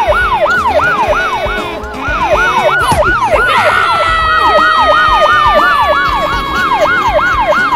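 Police siren in a fast yelp, its pitch sweeping up and down about three times a second. About three and a half seconds in, a second steady siren tone joins and slowly sinks in pitch.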